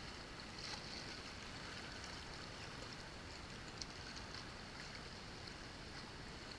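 Steady rush of river water running over shallow riffles around a kayak, with a faint paddle splash a little under four seconds in.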